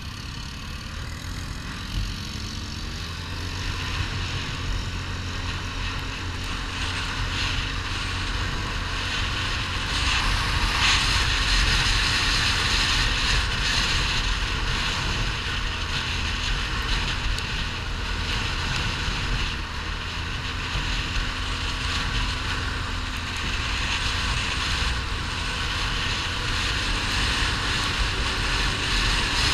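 ATV engine running under way, with wind rushing over the microphone. Both get louder about ten seconds in as the quad picks up speed.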